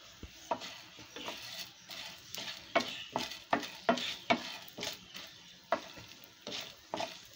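Wooden spatula stirring coriander seeds and toor dal around a nonstick pan as they roast in a little ghee: a run of quick scraping strokes, busiest in the middle, over a faint sizzle.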